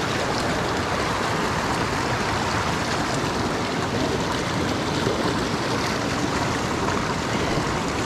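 Shallow rocky creek running steadily over and between boulders, an even rushing of water.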